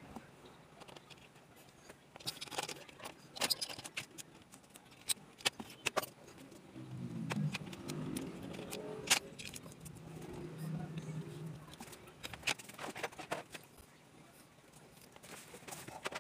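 Scattered small clicks, taps and light clatter of hand tools and small plastic and metal parts being handled on an opened laptop's mainboard, the sharpest tap about nine seconds in.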